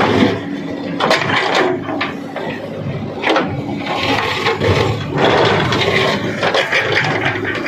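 Heavy diesel machinery running, its engine a steady low drone under rough rushing and scraping noise, with scattered knocks and clatters.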